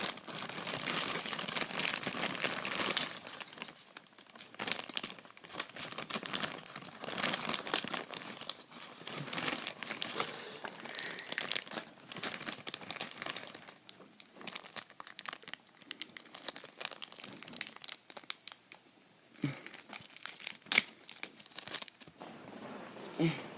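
Plastic toy packaging crinkling and rustling in irregular bursts as it is handled and torn open, with scattered sharp clicks; loudest in the first few seconds.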